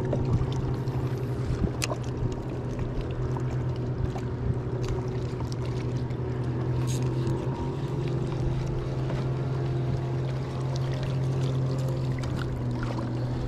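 Steady electric hum of a bass boat's live well pump filling the live well with lake water, with a few light ticks over it.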